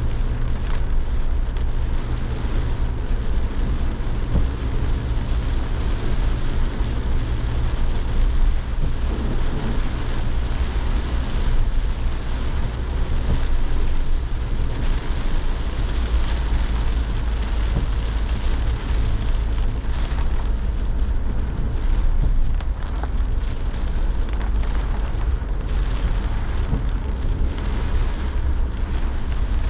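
Heavy rain pouring steadily, with wind buffeting the microphone in a constant low rumble.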